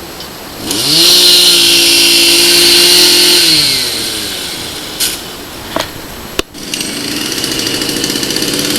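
Machine-mounted drill boring a hole through a log: it spins up under a second in, runs at a steady pitch for about two and a half seconds, then winds down. A few sharp knocks follow, and a steady engine hum sets in near the end.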